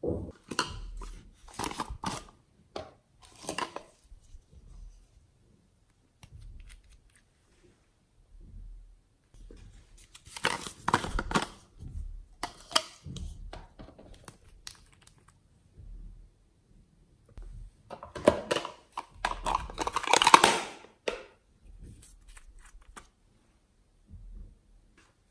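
Hands handling small plastic bottles and tubes of slime ingredients: crinkly, scratchy plastic rustles that come in three main bursts, the last one the loudest.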